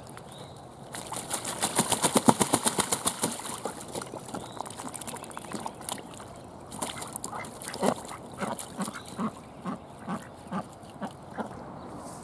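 Domestic ducks dabbling and splashing with their bills in a shallow plastic kiddie pool: a fast run of sharp wet splashes, about ten a second, starting about a second in and lasting a few seconds. Later a slower series of soft regular knocks, about two a second, toward the end.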